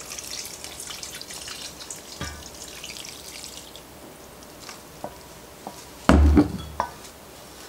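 Chicken broth poured from a glass measuring cup into a stainless steel mixing bowl of crumbled cornbread, splashing for the first few seconds, then a wooden fork stirring the wet mixture. A single loud knock about six seconds in.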